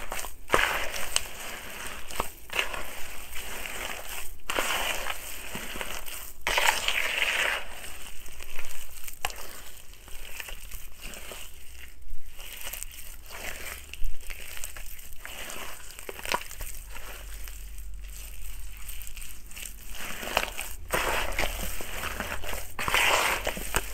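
Bare hands crushing and kneading wet, gritty soil mixed with water in a basin: irregular gritty crunching as the clumps break up, in uneven surges with the odd sharp click.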